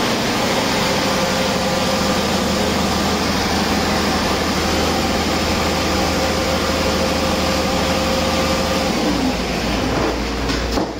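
2015 Paccar MX13 inline-six diesel engine idling steadily on a test stand.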